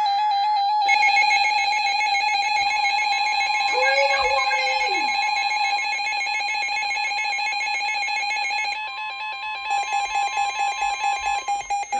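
Emergency Alert System attention signal: the steady two-tone alarm (853 and 960 Hz together) that comes before a broadcast tornado warning message.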